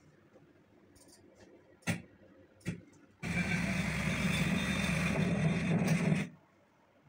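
Two clicks, then about three seconds of a steady, noisy rumble played back through the editing computer's speakers, starting and cutting off abruptly as playback is started and stopped.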